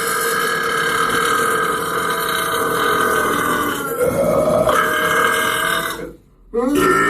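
A man's long, drawn-out burp that shifts in pitch about two-thirds of the way through, breaks off, and after a short pause is followed by the start of another burp near the end.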